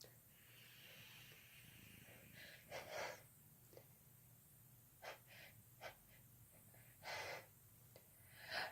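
A person's faint, short, sharp breaths and sniffs, several of them a second or two apart: the catching inhalations of someone building up to a sneeze.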